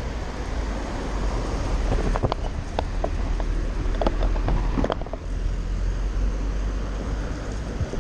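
Wind rumbling on a GoPro's microphone while cycling through city traffic, with cars running past. A quick run of short clicks and squeaks comes between about two and five seconds in.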